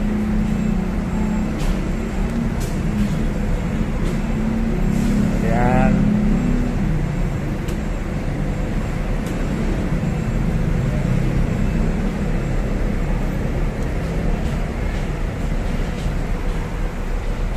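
Steady low rumble of motor-vehicle engines, buses and road traffic, with a rising whine about five and a half seconds in.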